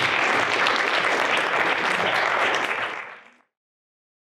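Audience applauding, many hands clapping together, fading out about three seconds in.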